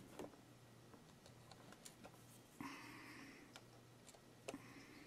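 Faint, scattered light clicks and taps of small screws and a plastic tool body being handled on a workbench, with a brief soft rustle about two and a half seconds in, over a faint low hum.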